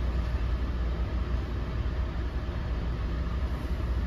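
Steady low rumble of an NJ Transit multilevel rail coach running at speed, heard from inside the passenger cabin.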